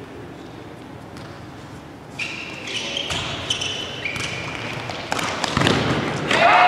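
Futsal ball kicked and bouncing on a hard indoor court, with sneakers squeaking in short high chirps from about two seconds in. Near the end a goal goes in, and a sudden loud shout rises over it.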